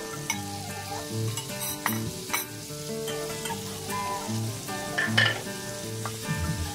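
Meat sizzling in a frying pan as raw shrimp and squid are tipped in, with several clattering knocks, the loudest about five seconds in. Soft background music with held notes plays underneath.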